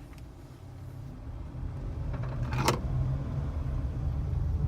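Car driving, its low rumble growing louder from about a second in, with one sharp click a little past halfway; the owner takes the car's noise for a bad CV axle.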